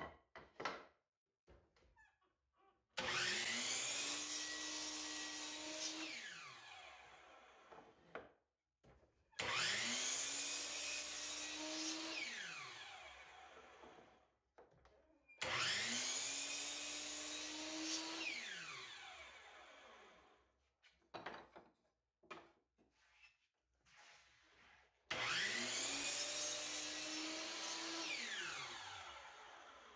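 Hercules miter saw making four crosscuts through wooden boards. Each time the motor starts with a rising whine, the blade cuts, and the motor winds down in a long falling whine. Light clicks and knocks of boards being set against the fence come in between.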